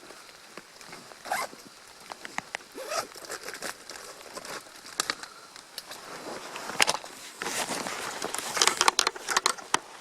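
Gear being handled close to the microphone: scattered clicks and rustling, sparse at first and getting louder and busier over the last few seconds, over a steady hiss of rain.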